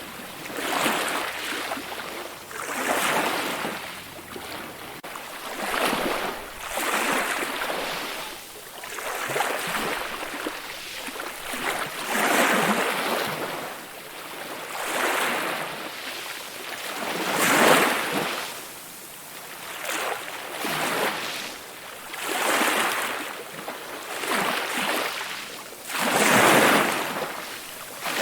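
Calm ocean waves breaking and washing in steady succession, a new surge of surf swelling and fading every two to three seconds.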